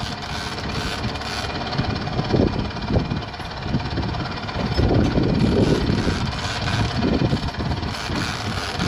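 Sailboat's engine running steadily, with wind buffeting the microphone in uneven gusts.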